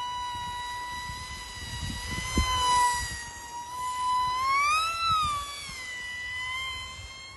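Small brushless motor (EMAX 1106 6000kv) spinning a 3-inch two-blade propeller on an RC fixed-wing plane, giving a steady high whine that rises in pitch about five seconds in and falls back, with wind rumble on the microphone underneath.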